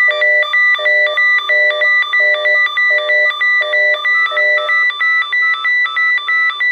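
Weather alert radio sounding its electronic alarm: a steady high tone under a fast, repeating pattern of switching beeps, pulsing about three times a second. This is the receiver's warning that an alert has come in. A lower pulsing part of the pattern drops out about halfway through.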